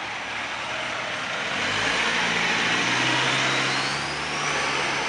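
Concrete-mixer semi-trailer truck's diesel engine running as it drives along, the engine note growing louder about two seconds in. A thin high whine rises steadily in pitch through the second half.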